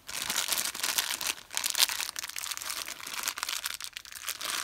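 Thin plastic doll wrapper crinkling and crackling in irregular bursts as hands squeeze and pull at it to open it.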